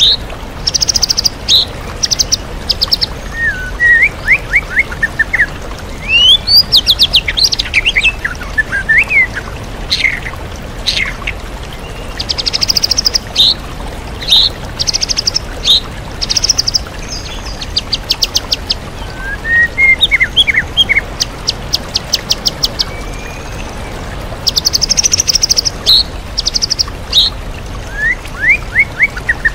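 White-rumped shama singing a varied song full of mimicked calls of other birds: fast, high trills and quick sweeping notes in phrases every second or two, over the steady rush of a waterfall.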